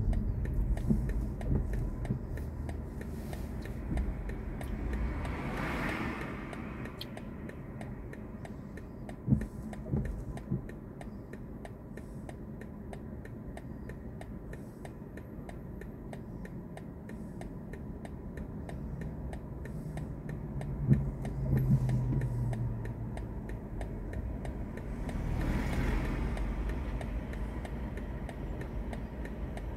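Turn-signal indicator of a BMW i4 M50 ticking steadily in the quiet cabin of the electric car while it waits at a red light, over a low rumble of traffic passing now and then.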